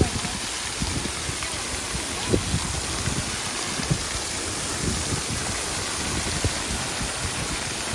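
Water jet spraying and its drops pattering down in a steady hiss, with scattered soft low thumps.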